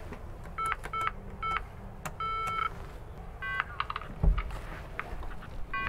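Door-entry intercom keypad beeping as its buttons are pressed: three short beeps about half a second apart, then a longer beep, then a different, higher multi-tone beep. A dull thump about four seconds in, and one more short beep near the end.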